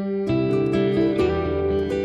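Background instrumental music led by a plucked guitar, with notes changing every fraction of a second.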